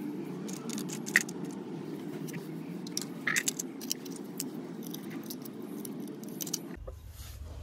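Scattered light clicks and clinks of small hard objects over a steady low hum, with two sharper clicks about one and three seconds in. Near the end the hum stops abruptly and a deeper hum takes over.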